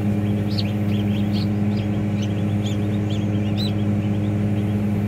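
Newly hatched ducklings peeping in many short, high chirps, several a second, over a steady low hum from the running incubator.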